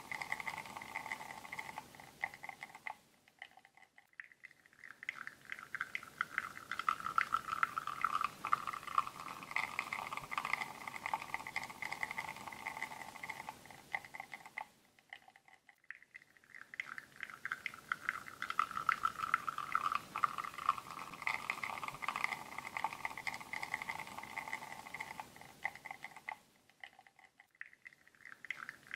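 Espresso shot pulling on a La Marzocco Linea Mini through a bottomless portafilter: a steady trickling, crackly pour into the cup. It breaks off into near quiet three times, about twelve seconds apart, and starts again each time.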